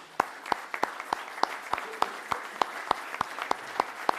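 Audience applauding in a large hall, with one set of sharp claps standing out above the rest at about three a second.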